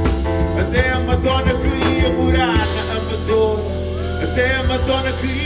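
Live band playing: drum kit and electric keyboard, with the drums dropping out about two and a half seconds in and held keyboard chords carrying on, a wordless singing voice gliding over them.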